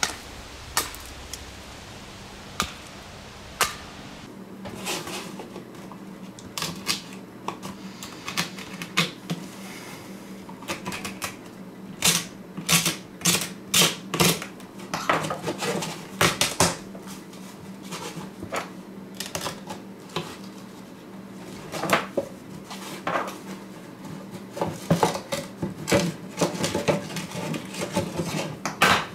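Glued-on grille cloth being torn and peeled off a small plastic RCA surround speaker cabinet: irregular sharp crackles and clicks of fabric ripping away from the plastic, coming in quick runs.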